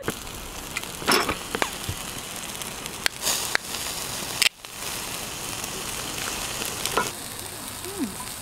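Meat skewers sizzling on a grill over a fire: a steady hiss with several sharp crackles and pops.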